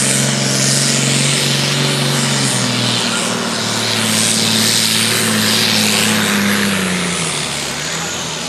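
John Deere super-standard pulling tractor's diesel engine running at full revs under heavy load as it drags the weight sled, loud and steady. Near the end the revs sag and fall as the engine bogs down, a sign that the downshift came a little too late.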